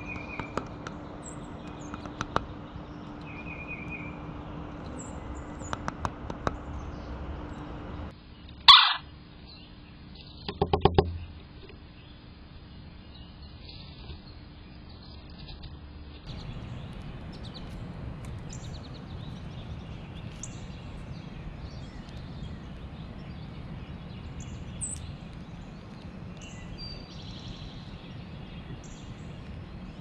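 Red-bellied woodpecker pecking at a caged suet feeder: scattered sharp taps with a few brief chirps and a low steady hum behind. About nine seconds in there is one loud sharp sound, and a couple of seconds later a short run of rapid taps. In the second half there is only a faint outdoor background with occasional high bird chirps.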